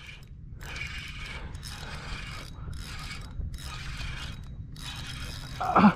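Fishing reel being cranked to retrieve line, its gears whirring in short spurts with brief pauses between turns.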